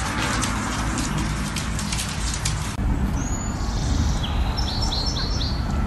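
A quick patter of light clicks and taps for the first few seconds, then a bird singing: one high whistle followed by a quick run of about four short falling chirps, over a steady low rumble.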